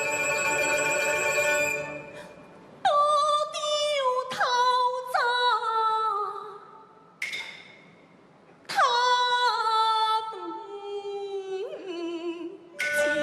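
Taiwanese opera (gezai xi) music: a held chord for about two seconds, then a run of sharply started notes that slide down in pitch, broken by two short pauses.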